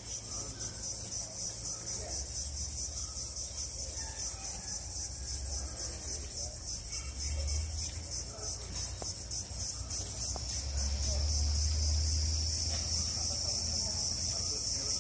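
A steady, high-pitched insect chorus with a fast even pulsing, over a low rumble that grows louder for a few seconds after the middle.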